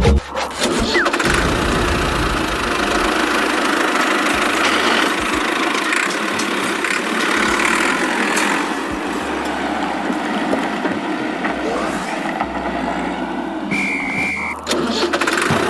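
A DIY mini tractor's small motor running steadily, with abrupt changes about three-quarters of the way through and a brief high tone near the end.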